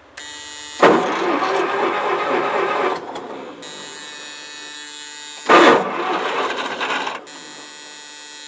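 Starter cranking the four-cylinder Wisconsin gasoline engine of a New Holland L425 skid steer, choked and at half throttle, in two tries of about two seconds and then a second and a half, without it catching. A steady electrical hum runs under and between the tries.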